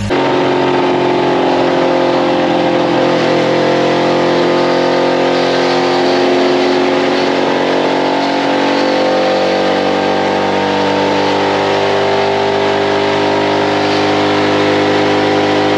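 Pickup truck's petrol engine running at sustained high revs, fed on aerosol spray paint and brake cleaner sprayed into its intake. Its note is loud and steady, sagging a little mid-way and then climbing back.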